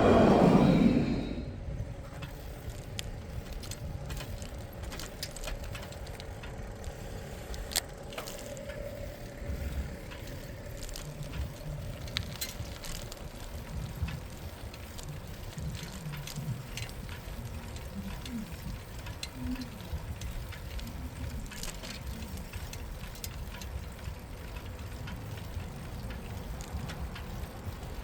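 Bicycle ride heard from the saddle: steady tyre and wind rumble with scattered small clicks and rattles from the bike. A louder passing vehicle fades away in the first two seconds.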